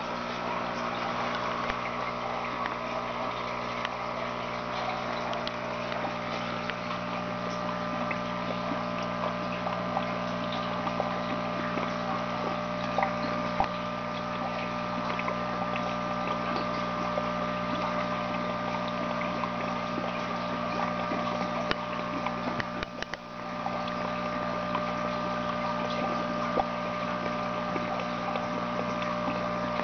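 Small electric pump of a hydroponic system humming steadily, with water bubbling over it; the sound dips briefly about three-quarters of the way through.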